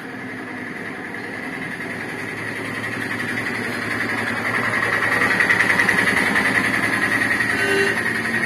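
An engine running with a steady pulsing hum, growing louder to a peak about five seconds in, then easing off slightly.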